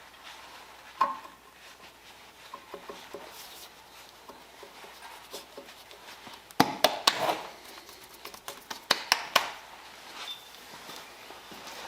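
Hand tools and metal engine parts clinking and knocking during engine assembly, with scattered sharp clicks and a busier patch of clatter from about six to nine and a half seconds in.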